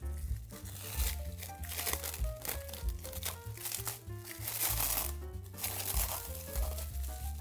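Plastic cling film crinkling as it is stretched and smoothed over a glass bowl, with background music playing throughout.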